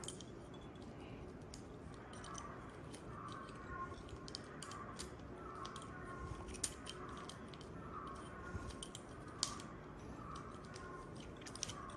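Faint, scattered small metallic clicks and ticks of a lock decoder tool and car lock being handled.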